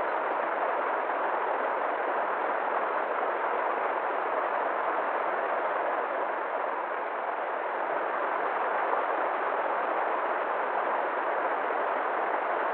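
River water flowing, a steady, even rush with no change.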